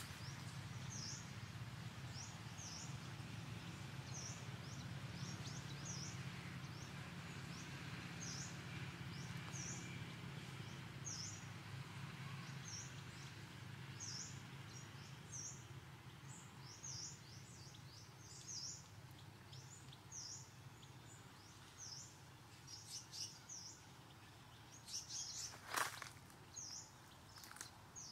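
A small bird repeating a short, high chirp roughly once a second over steady background noise. A single sharp click or knock comes near the end.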